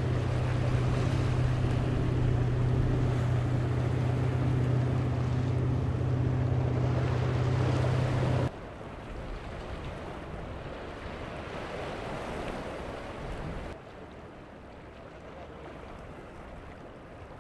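An engine running steadily with a low, even hum over wind and surf, which stops abruptly about eight and a half seconds in; after that only quieter wind and surf noise remains, dropping lower again near fourteen seconds.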